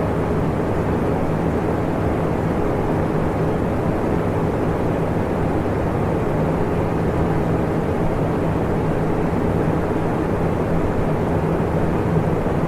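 Electric fan running steadily: an even rush of air with a low, constant hum under it.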